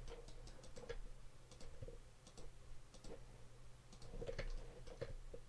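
Faint computer mouse clicks, a few irregular clicks each second, from selecting vertices one after another. A low steady hum runs underneath.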